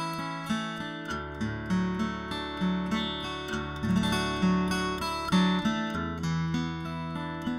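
Instrumental acoustic guitar music, plucked notes ringing and decaying in a steady rhythm.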